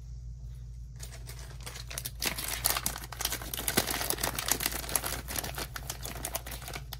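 Foil-lined plastic blind bag crinkling and crackling as hands pull it open and rummage inside for the figure, starting about a second in.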